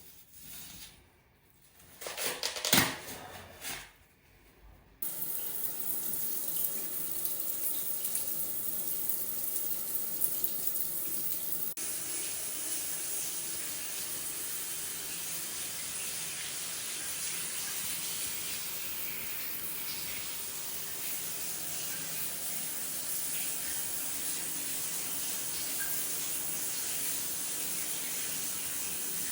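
A couple of knocks, then about five seconds in a shower starts running and keeps spraying steadily: a leak test of a glass shower enclosure whose door has no rubber seal.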